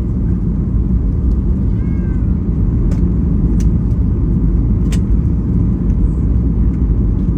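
Steady low rumble inside the cabin of a Boeing 737 MAX 8, from its CFM LEAP-1B engines and the rushing air. Three sharp clicks or rattles come about three, three and a half and five seconds in, and a faint brief squeak comes about two seconds in.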